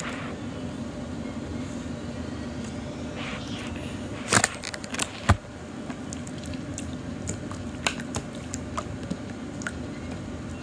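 Jiggly slime being squished and handled, with scattered small squelches and two louder wet squelches about four and five seconds in, over a steady low background hum.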